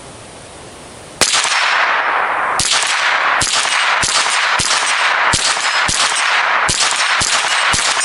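A Ruger 10/22 semi-automatic .22 rimfire rifle fired about a dozen times, first about a second in, then at roughly two shots a second, each hit making a steel gong ring; the gong's ringing carries on between shots.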